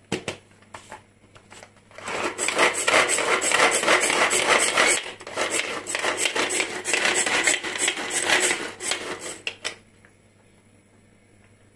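Small handheld food chopper cutting onion: a loud, gritty, rapid chopping noise starts about two seconds in, runs for about eight seconds and stops abruptly, after a few light clicks of the device being handled.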